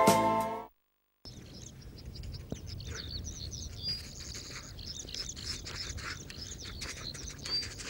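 A held music chord fades out in the first second; after a brief silent gap, small birds chirp and twitter continuously in quick high notes over a low steady background rumble.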